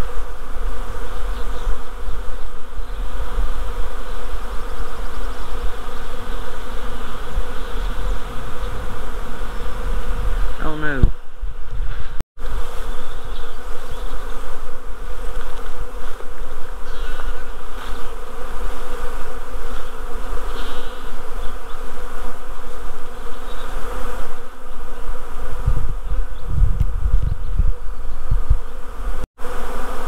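Honeybee swarm buzzing: a dense, steady hum of thousands of bees in flight around a swarm trap box. Just before eleven seconds in, one loud buzz slides down in pitch, and a low rumble rises under the hum near the end.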